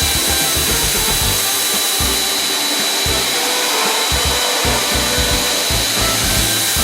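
Ultra-high-pressure washing robot spraying water jets inside a ceiling-cassette air conditioner: a steady loud hiss with a constant high whine and an uneven low rumble underneath.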